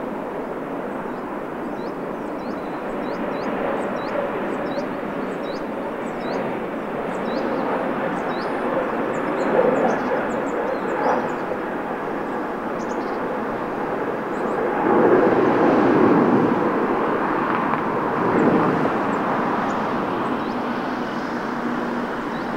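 Jet engines of an Airbus A321neo at takeoff power: a steady, wide rushing noise that swells and is loudest about two-thirds of the way through.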